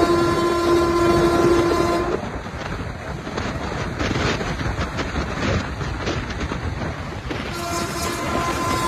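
Indian Railways electric locomotive horn sounding one steady tone that cuts off about two seconds in. Then comes the rumble and clatter of a train's wheels running over the track, and the horn sounds again near the end.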